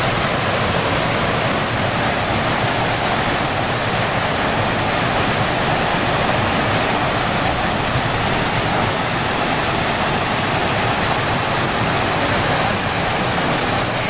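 Small waterfall pouring into a rock pool: a loud, steady rush of falling water.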